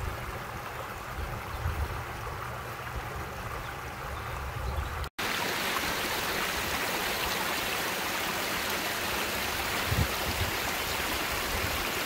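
Shallow stream running over stones, a steady rush of water, with low thumps on the microphone in the first half. About five seconds in, after a brief dropout, the rush is louder and fuller, near a small weir spilling water.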